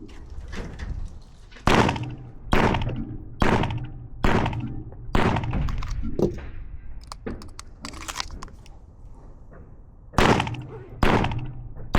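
.22 rimfire pistol fired in rapid succession: five shots a little under a second apart, then a pause of about five seconds for the magazine change, then two more shots near the end.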